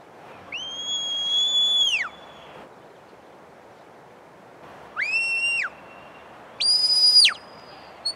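Shepherd's whistle commands to a working Border Collie herding sheep. One long steady note, then a shorter lower note about five seconds in and a higher note just after it. A brief pip comes right at the end.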